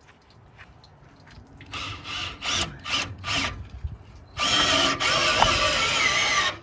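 Cordless power drill driving a trailer stabilizer jack: a few short bursts, then a steady run of about two seconds near the end, pressing the stabilizer foot into a snap-on SnapPad.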